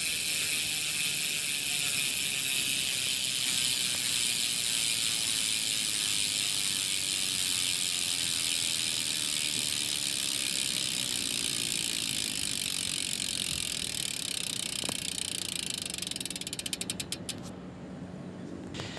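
Speedone Soldier bicycle hub's six-pawl freehub freewheeling, a fast, even ratchet buzz. It slows near the end until single clicks can be picked out, then stops.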